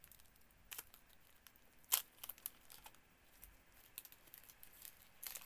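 Foil Pokémon booster pack wrapper being torn open and crinkled: scattered sharp crackles, the loudest about two seconds in.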